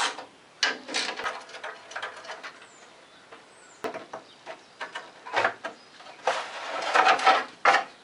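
Irregular scraping, rubbing and knocking of parts being handled as a motorcycle's rear fairing is worked off, busiest near the end.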